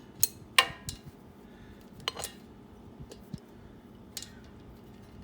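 Metal hand tools and bolts clinking while small valve-cover bolts are screwed down on a small engine: a few sharp, separate metallic clicks, the loudest about half a second in.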